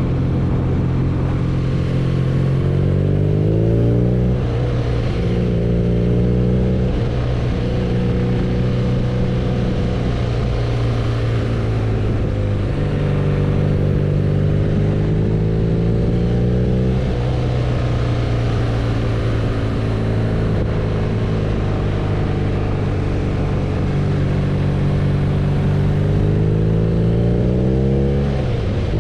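BMW R nineT's 1170 cc boxer twin engine running under way, its revs climbing under throttle and dropping back several times, about four rises over the stretch.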